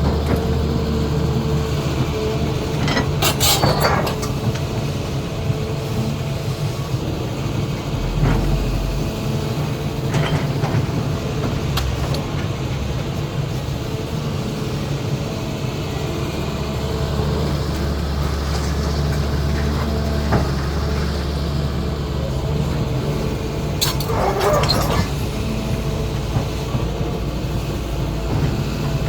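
CAT 320D excavator's diesel engine running steadily under hydraulic load as it digs and loads. Loud clattering rattles come twice, about three seconds in and again near the end, with a few single knocks between.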